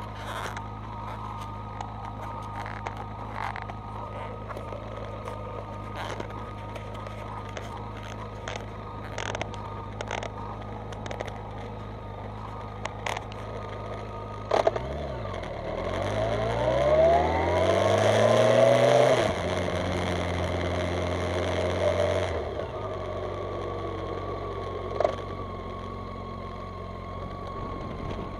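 Motorcycle engine idling with a steady hum and scattered light clicks. About halfway through it revs up, its pitch climbing as the bike pulls away, then holds for a few seconds before easing off to a steady run.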